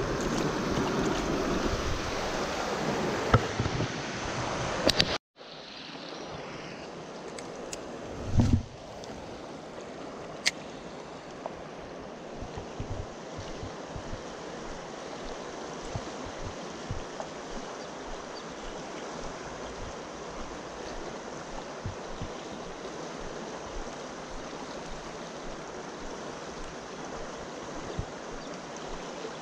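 Creek water rushing over rocks. For the first five seconds it is loud and close, with splashing as a smallmouth bass is let go by hand in the current; then it cuts off suddenly and goes on as a softer, steady rush with a few light clicks and a brief thump about eight seconds in.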